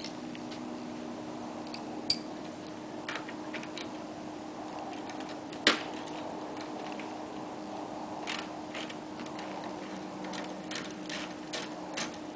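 Irregular sharp clicks and taps of hand tools on the wheelbarrow's oil-soaked handle bolts as they are worked at. The loudest knock comes about halfway through and a quick run of clicks near the end, over a steady low hum.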